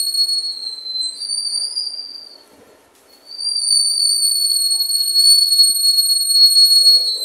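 Steel wheels of slowly rolling freight hopper cars squealing on the rails: a loud, steady, high-pitched squeal over a faint low rumble. The squeal breaks off for about a second near the middle, then comes back.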